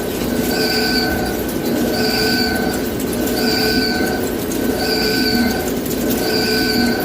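CNC lathe running, with a steady machine noise and a constant high tone, and a higher whine that comes and goes in an even cycle about every second and a half.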